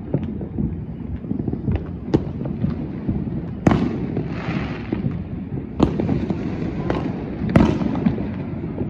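Fireworks going off all around: a steady rumble of distant bangs and pops, broken by three louder booms. The first comes a little before halfway, the second about two-thirds in and the third near the end. The first two are followed by a crackling hiss.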